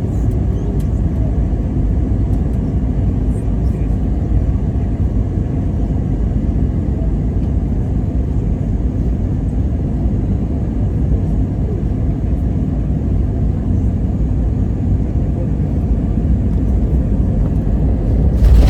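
Airliner cabin noise: a steady low rumble of engines and airflow. Just before the end it jumps to a sudden, louder rumble.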